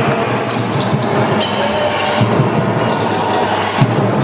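Basketball bouncing on a hardwood court during play, amid the steady noise of a large indoor arena, with one sharper knock near the end.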